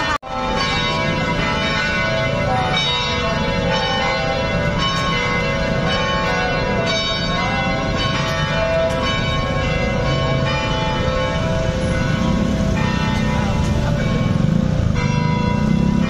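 Eijsbouts-cast church tower bells ringing in a continuous peal: many bells struck in quick succession, their ringing tones overlapping. The sound cuts out for an instant just after the start.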